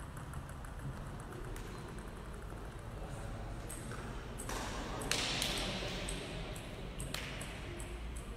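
Light, sharp clicks of a table tennis ball tapping on the table and bats, repeated many times, with a louder rush of noise in the hall about five seconds in.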